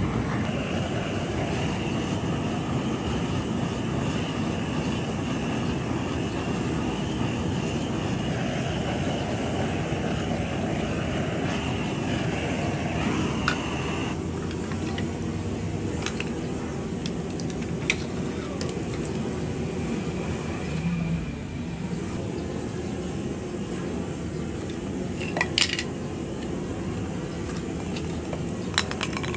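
Steady hiss of a butane canister torch flame, used to heat bamboo so it can be bent; the sound changes slightly about halfway. A few short knocks of bamboo poles being handled.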